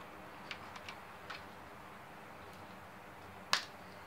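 Light clicks of small screws being turned in by hand with a screwdriver into a brittle plastic projector housing: a few in the first second and a half, then one sharper click about three and a half seconds in.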